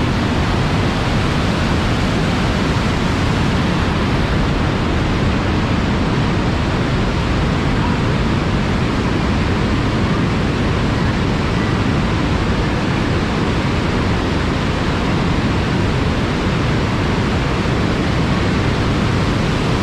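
Waterfall and creek water crashing through a narrow rock gorge: a loud, steady roar that is really loud in the enclosed canyon.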